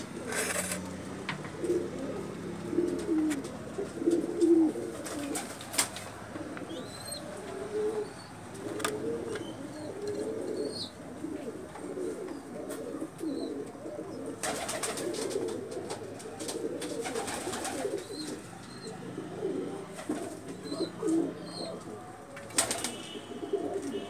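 Shirazi pigeons cooing over and over in low, rounded calls. A few short noisy bursts break in, the longest about a second and a half around the middle.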